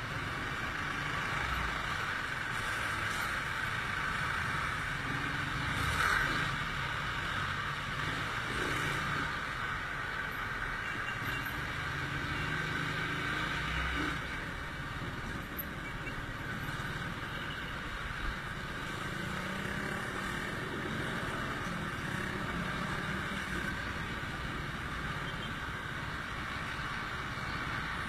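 Steady traffic noise heard from a moving Yamaha NMAX 155 scooter: its engine, the road and the nearby trucks and cars blended together, with a brief louder swell about six seconds in.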